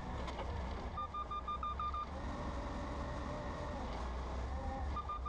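Propane clamp-truck forklift's engine running steadily as it drives, with a quick run of short electronic beeps about a second in and again near the end. A faint whine climbs a little in pitch in the second half.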